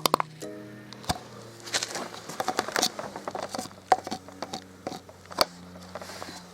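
Irregular clicks, knocks and light rattles of metal parts and tools being handled, over soft background music with held notes.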